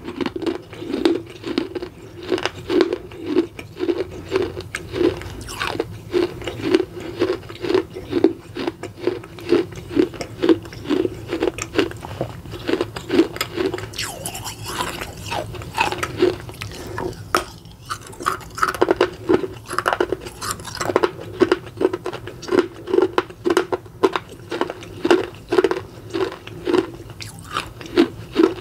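Crunching and chewing of a small red clay pot, bitten and ground between the teeth in a steady rhythm of about two chews a second, with a short pause about two-thirds of the way through.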